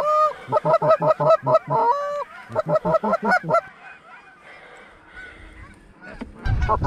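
Canada goose honks and clucks in a quick run of about five a second, with two longer drawn-out honks among them, the calling used to bring a flock into the decoys. After a quieter few seconds the honking starts again near the end over a low rumble.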